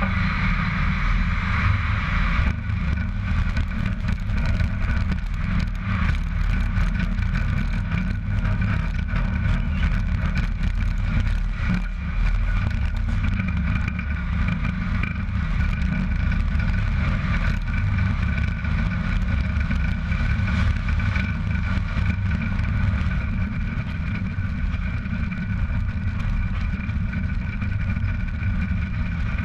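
Road noise of a heavy truck-and-trailer rig on the move, heard right beside the trailer's wheels: a steady low tyre-and-wind rumble with a few steady higher whines over it.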